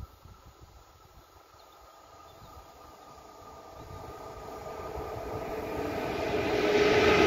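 Škoda class 181 electric locomotive hauling a train of tank wagons approaches. Its rumble and steady humming tones grow steadily louder, from faint to loud over the last few seconds.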